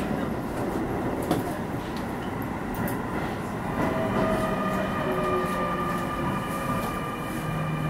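Keio 9000 series electric train heard from inside the carriage, running with a steady rumble of wheels on rail. From about four seconds in, a whine from the traction motors sets in, several tones at once, falling in pitch in small steps as the train slows into a station.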